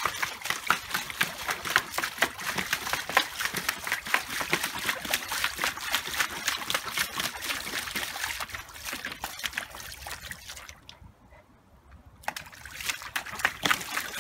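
Samoyed puppy pawing at the water in a plastic paddling pool: quick, irregular splashing that dies down about ten seconds in, with a short lull before the splashing starts again near the end.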